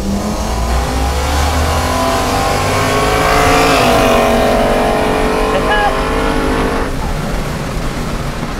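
Cars at full throttle on a race track, their engines climbing in pitch and getting louder, then dropping in pitch as they pass about three and a half seconds in, and fading about seven seconds in.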